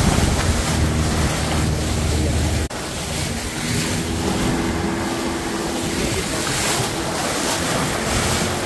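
Outboard-powered boat running at speed over choppy water: rushing and splashing spray off the hull and wind buffeting the microphone, with the steady drone of the Yamaha 150 outboard motor beneath. The deep low rumble drops away abruptly nearly three seconds in.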